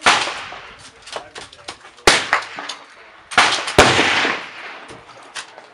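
Rifle shots at an outdoor range, each a sharp crack with a trailing echo: one at the start, one about two seconds in, and two close together a little over three seconds in.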